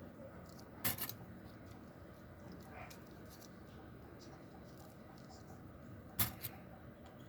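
Two sharp clicks of small objects being handled, about five seconds apart, with faint scratching and ticking between them, over a steady low room noise.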